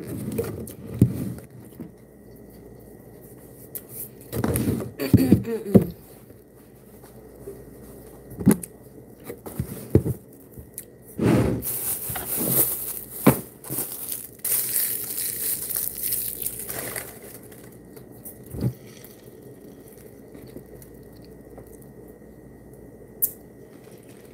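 Irregular handling noises of a lunch container and its packaging: scrapes, crinkling rustles and light knocks, with a louder cluster about five seconds in and a stretch of hissy rustling around the middle. A faint steady high whine sits underneath.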